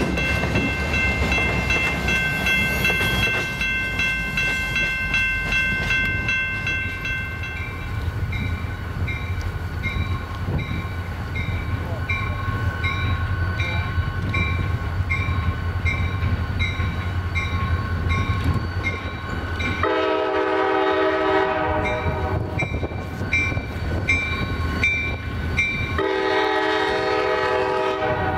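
Diesel freight locomotives rumbling as a train approaches, the bell ringing in steady, evenly spaced strokes. About 20 s in the locomotive horn sounds a long chord blast, and a second long blast follows about 26 s in.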